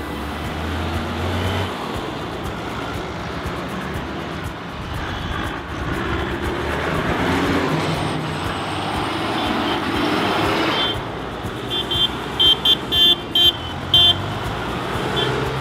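Diesel engines of large farm tractors, a Deutz-Fahr and a John Deere among them, running as the tractors drive past one after another. About twelve seconds in, a horn gives a quick series of five or six short toots.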